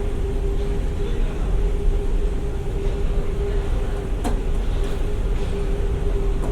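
Train interior running noise: a steady low rumble with a constant hum, and one sharp click about four seconds in.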